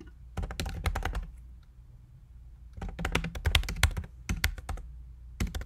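Computer keyboard typing in three quick bursts of keystrokes with short pauses between them, over a faint low steady hum.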